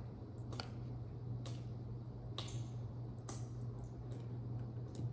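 Cake batter being stirred by hand in a bowl: a soft wet squishing, with the mixing utensil clicking against the bowl about once a second, over a steady low hum.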